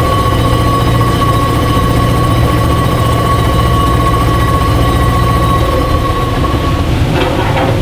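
Double worm-gear drive of hydroelectric plant machinery turning steadily: a continuous mechanical run with a clear high whine over a low rumble. About seven seconds in the whine stops and a rushing noise takes over.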